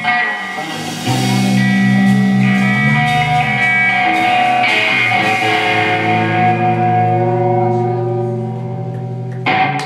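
Live rock band of electric guitar, bass guitar and drums playing long held, ringing chords and bass notes, ending on a sudden loud hit near the end, the close of the song.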